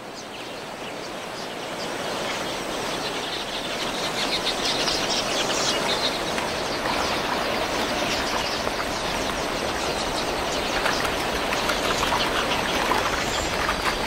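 A huge flock of red-billed quelea twittering en masse at a waterhole, a dense mass of overlapping chirps and wing noise that builds over the first few seconds and then holds steady.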